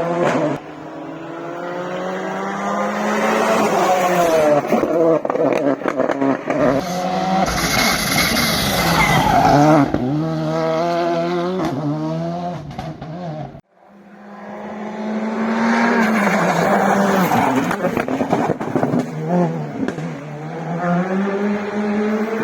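Rally car engine revving hard at full throttle, its pitch climbing and dropping with each gear change. The sound cuts off abruptly a little past halfway, and a second rally car is heard accelerating up through the gears.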